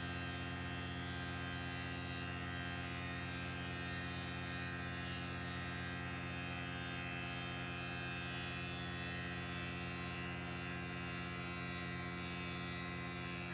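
Tormach PCNC 1100 CNC mill running a steady milling cut in metal stock, its spindle drive giving an even hum with a whine above it.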